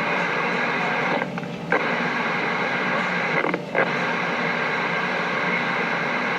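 CB radio receiver on a crowded skip channel: steady static hiss with faint, jumbled distant signals underneath. The noise drops out briefly twice, about a second in and again about three and a half seconds in.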